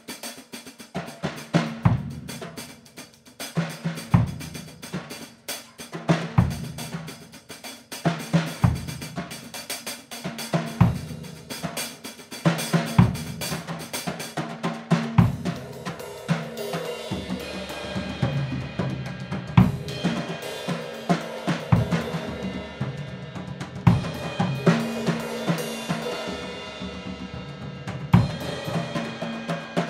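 Drum kit played solo: a dense run of snare and tom strokes, with a deep low drum accent about every two seconds. Cymbal wash builds from about halfway through.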